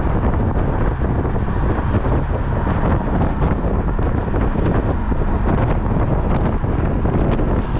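Steady wind buffeting on the microphone with tyre and road noise from a car driving along, heard from its open trunk.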